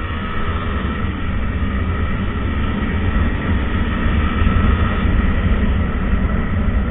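Motorbike running on a ride, its engine note buried under a heavy, steady low rumble of wind on the microphone, growing slightly louder.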